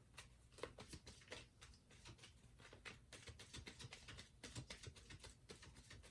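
Faint, irregular small taps and rustles of tarot cards being handled, several clicks a second.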